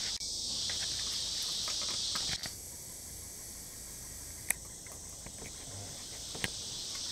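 Steady insect chorus from the riverbank woods, a high shrill drone that drops in level about two and a half seconds in. Two faint sharp clicks come near the middle and near the end.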